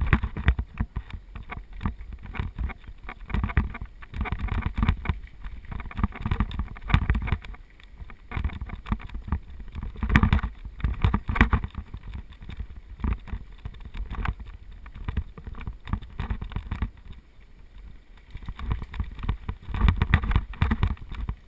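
Mountain bike descending a rough dirt track at speed: the bike rattling and clattering over bumps, with wind buffeting the microphone in uneven gusts.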